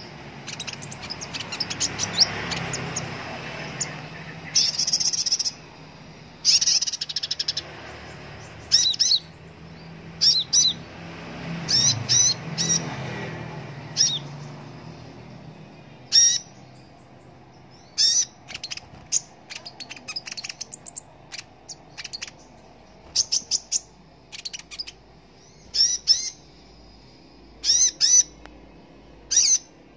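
Male kolibri ninja sunbird calling: short, high, sharp chirps and quick twittering bursts, in clusters every second or two, with a low background rumble in the first half.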